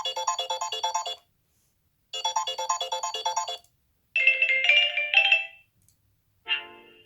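Samsung Galaxy Note8 built-in ringtones playing: two bursts of quick repeated electronic notes with short pauses between, a higher chiming phrase about four seconds in, then a different ringtone starting near the end.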